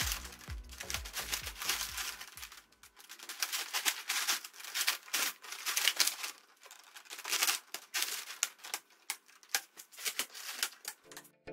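Empty clear plastic bottles crinkling and clicking as they are handled, pushed together and fastened into rows, in irregular crackles throughout.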